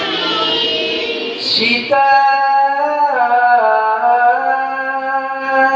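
Quran recitation in the melodic tajweed style. For about the first two seconds several voices chant together. Then a single man's voice takes over, holding long sustained notes and stepping down in pitch about a second later.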